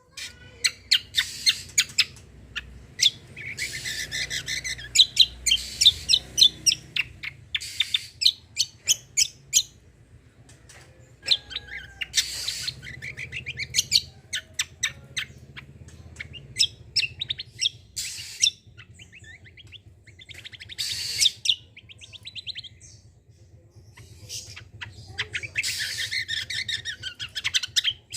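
A kecial kombo (cucak kombo) songbird in full song: rapid runs of sharp staccato notes (the "tembakan") broken by several bursts of harsh raspy buzzing (the "besetan").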